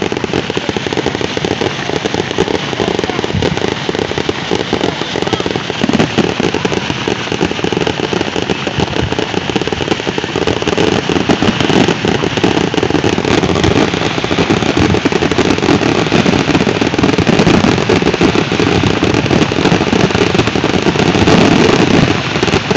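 Fireworks display: dense, continuous crackling from ground fountains and bursting aerial shells, growing louder toward the end.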